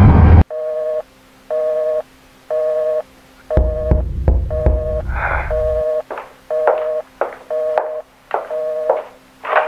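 Telephone busy signal: a steady two-tone beep, half a second on and half a second off. A loud noise cuts off just before it, about half a second in. A low rumble comes in the middle, and short crackling bursts from about halfway on.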